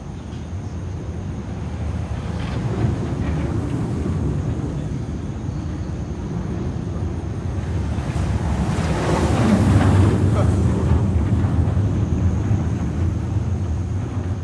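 Roller coaster rumble with wind buffeting the microphone, swelling to a peak about ten seconds in, then easing off.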